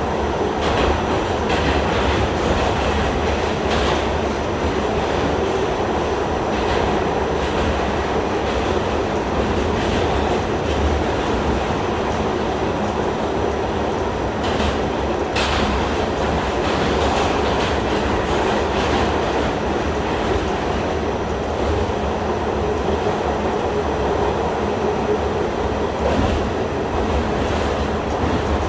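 New York City subway train running at speed on the D express, heard from inside the car: a steady roar of wheels and motors with occasional sharp knocks, the clearest about fifteen seconds in.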